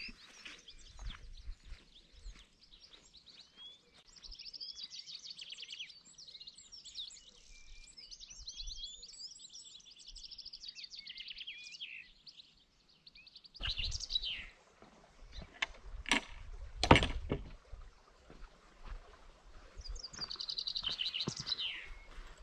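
Small songbirds singing long runs of high, quick twittering phrases. About halfway through, the background noise rises and a few sharp knocks follow, the loudest a little past the middle, then the bird song returns near the end.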